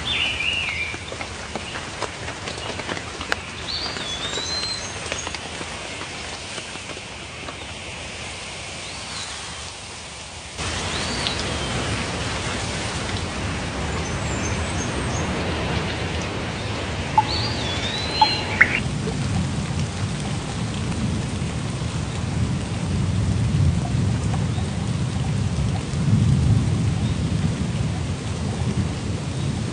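Steady rain with a few short bird chirps, and a low rolling rumble of thunder that builds in the last third. The sound changes abruptly about ten seconds in.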